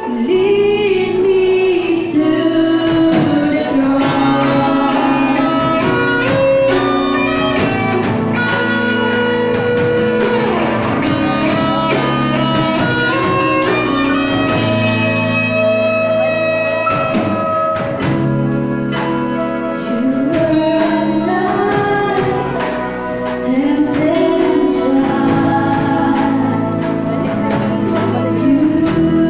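Two women singing a slow worship song into microphones, backed by a live band of electric keyboard and drum kit.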